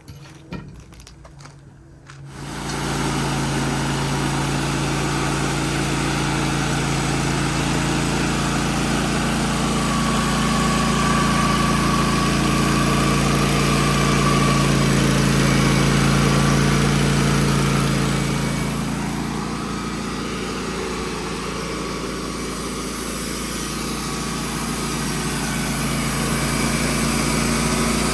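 Wood-Mizer portable sawmill's engine coming in about two seconds in and running steadily at speed, as the sawmill works the cant into boards. It sounds a little quieter for a few seconds past the middle, then rises again.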